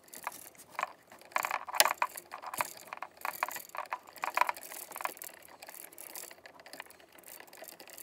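A plastic wire nut being twisted by hand onto three black copper wires in an electrical box, with irregular crackling and clicking as the wires rub and the nut is screwed down. The clicking is busiest in the first five seconds and grows fainter after.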